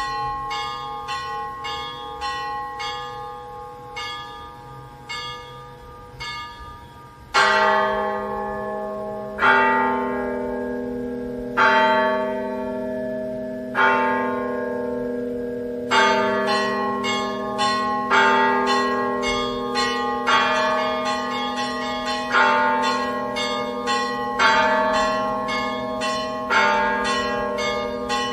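Orthodox church bells ringing: small bells chime quickly and fairly quietly, then about seven seconds in a large, low bell comes in, struck about every two seconds and loudest of all, while the quick small-bell chimes carry on over it.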